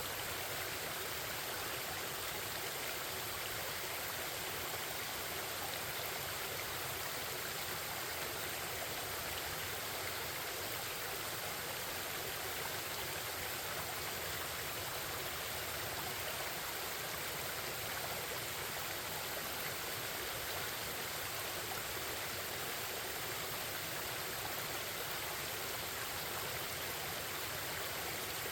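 Forest stream babbling, a steady rush of flowing water that does not change.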